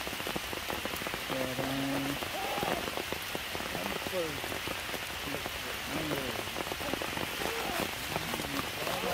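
Steady rain falling on stone and foliage, an even hiss. A few short voice-like cries rise and fall over it now and then.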